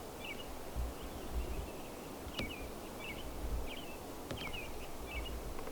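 A small bird chirping over and over, short high chirps roughly twice a second. A few sharp clicks and a low rumble sit under the chirps.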